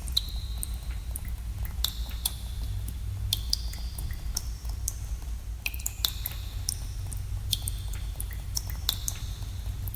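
Water drops falling in a cave, each landing with a sharp plink that rings briefly at a high pitch, one or two a second at irregular intervals, over a steady low rumble.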